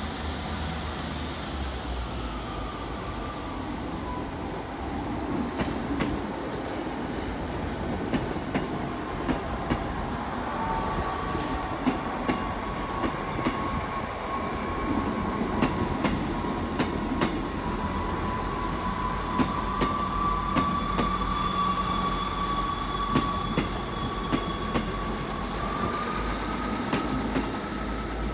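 Two coupled Class 159 diesel multiple units pulling away and passing close by, their Cummins diesel engines running steadily. From about six seconds in, the wheels click over rail joints and points, and in the second half a thin, steady wheel squeal sits above the engine noise.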